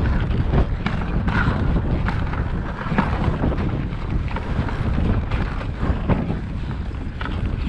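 Wind buffeting the microphone over the steady rumble of a wooden dog sled running on a packed snow trail, with scattered short knocks and rattles from the sled.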